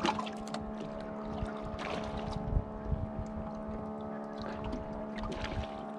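Steady mechanical hum from the fishing boat, holding one even pitch throughout, with a few faint light clicks over it.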